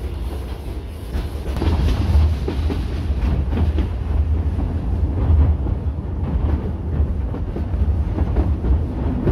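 Narrow-gauge steam train's wooden carriages rolling along the track, heard from on board: a steady low rumble with irregular wheel clatter and knocks from the rails.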